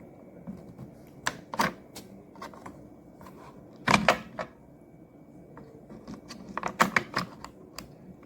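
Clicks and knocks of hard objects being handled, in three quick clusters: just over a second in, near four seconds in (the loudest), and near seven seconds in. A faint steady high tone runs underneath.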